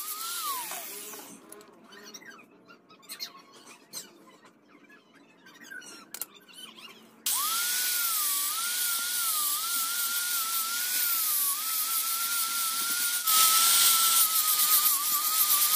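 Handheld mini grinder (rotary carving tool) whining as it spins down, with a few light clicks and knocks while it is off. About seven seconds in it is switched on again and sands the wood: its whine wavers in pitch under the changing pressure, over a steady hiss that gets louder a couple of seconds before the end.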